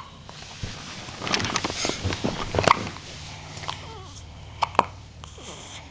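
Newborn baby hiccupping: two short, sharp hiccups about two seconds apart, after a stretch of rustling.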